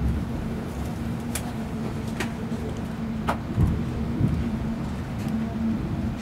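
Cabin noise inside a Class 390 Pendolino electric train on the move: a steady low rumble with a constant hum. A few sharp clicks sound in the first half, followed by some low knocks.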